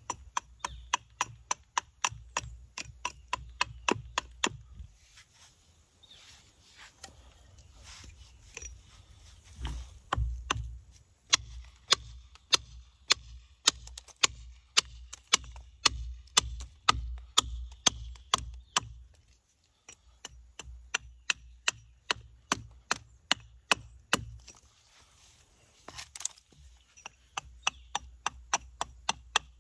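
Sharp wooden chops as a hand tool strikes a walnut spoon blank, about two a second, in runs broken by a few short pauses.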